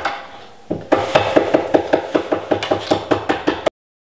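Rapid light hammer taps, about six a second, knocking the old pencil beading off a cabinet door; after a brief pause they start again and cut off suddenly near the end.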